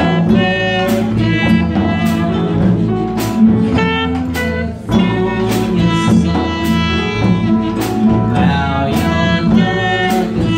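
Live band playing a song at a steady tempo: strummed acoustic guitar, electric bass and a drum kit keeping a regular beat.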